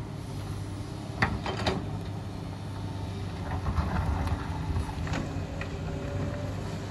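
Sany crawler excavator's diesel engine running steadily at working speed. Sharp clanks and clatters of the steel bucket on loose rock come about a second in, again just after, and several more around four to five seconds in.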